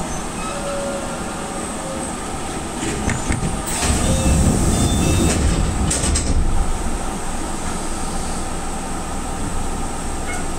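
Enshu Railway 2000-series electric train standing still, heard from the cab: a steady hum from its onboard equipment. About four seconds in, a louder rush of noise lasts about two seconds.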